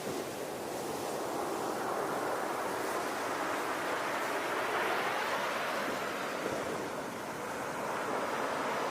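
Ocean waves: a continuous rushing wash of surf that swells about halfway through, eases, then builds again near the end.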